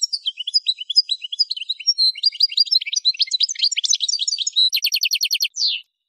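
European goldfinch of the Algerian parva race singing one song phrase of quick, varied high twittering notes. About five seconds in it ends with a fast, even trill of about a dozen notes and one short final note.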